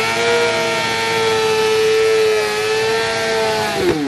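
Motorcycle engine held at high revs during a burnout, spinning the rear tyre in place; the revs drop sharply near the end.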